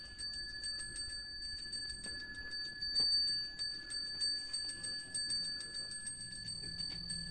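Balinese priest's handbell (genta) rung rapidly and without pause: a steady high ringing pulsed by many quick strokes a second, with one sharper knock about three seconds in.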